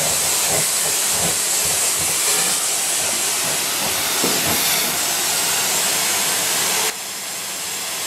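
Electrolux canister vacuum cleaner running with a steady rushing hiss as its nozzle is drawn over a cat's fur. About seven seconds in the rush drops abruptly to a quieter level.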